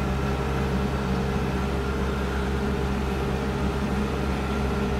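Kubota Grand L4760 tractor's four-cylinder diesel engine running steadily under load, driving a front-mounted snowblower through deep snow, heard from inside the closed cab as an even drone.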